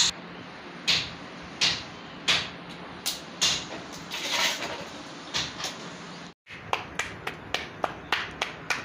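Hands slapping a ball of roti dough flat between the palms: a sharp pat about every 0.7 s. After a brief break, a quicker run of sharp taps.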